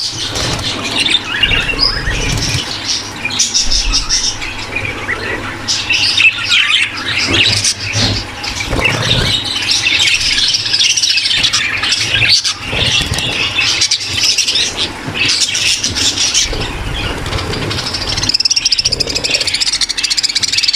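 A large flock of budgerigars chattering together without pause, many high calls and squawks overlapping: the busy sound of a budgie breeding room.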